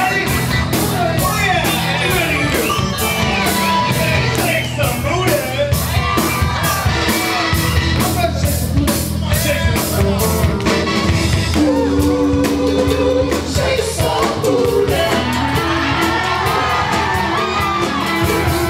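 Live band playing an up-tempo song with a man singing lead, congas, trombone and a steady, fast cymbal beat over a bass line.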